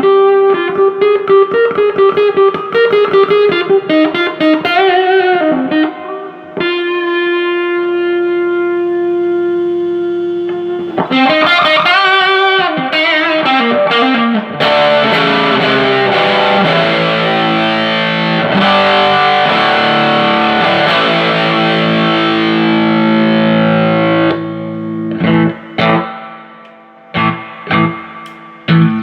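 Electric guitar played through a Fender Hot Rod Deluxe tube combo amp with distortion, the amp working again on a fresh pair of 6L6GC power tubes and new filter caps. Quick picked notes give way to a held chord about seven seconds in, more picking, a long sustained distorted chord from about fifteen seconds, then short choppy chords near the end.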